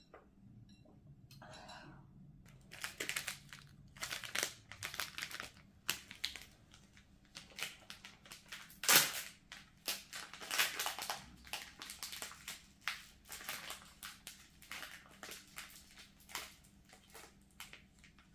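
Plastic candy wrapper crinkling and crackling as it is handled and opened, in a string of irregular crackles with one sharp louder crackle about nine seconds in.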